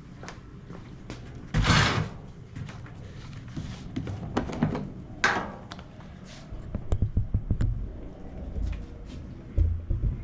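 Handling noise: a loud scraping clunk about one and a half seconds in, another sharp knock a few seconds later, then scattered knocks and a quick run of clicks, as fuel gear is moved about.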